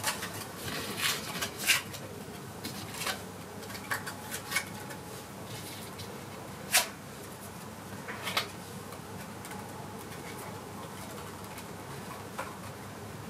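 Playing cards being handled and set in place: light, irregular clicks and snaps of card stock, several in quick succession in the first few seconds, a sharper single click in the middle and a few more later, over a steady low room hum.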